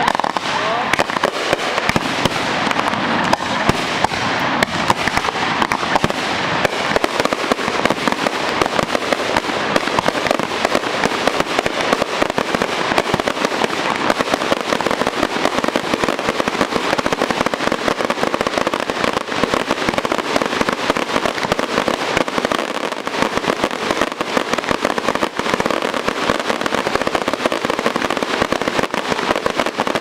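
Fireworks going off in a dense, unbroken run of rapid bangs and crackling.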